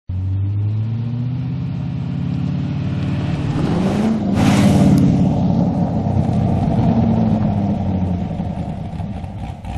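Chevrolet Corvette's V8 engine as the car drives past. The engine note climbs as it approaches, peaks with a brief rush of noise as it passes about four seconds in, then drops in pitch and fades as it pulls away.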